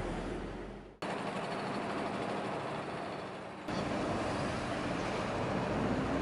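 City road traffic: buses and cars running and passing, a steady roar of engines and tyres. The sound breaks off and restarts abruptly about a second in and steps louder near four seconds, where separate clips are joined.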